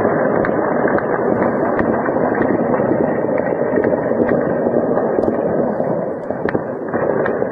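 Scattered sharp cracks of distant gunfire, roughly one a second, over a steady rushing noise.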